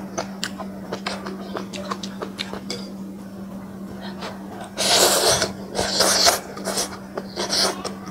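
Close-up chewing with small wet mouth clicks. From about five seconds in come three loud slurps of noodles and broth from a bowl of spicy noodle soup.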